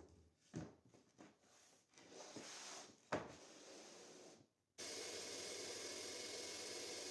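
Wooden pieces being handled, rubbed and knocked together, with sharper knocks about half a second, a second and three seconds in. Then, nearly five seconds in, the steady whir of a power saw's motor starts abruptly and runs on.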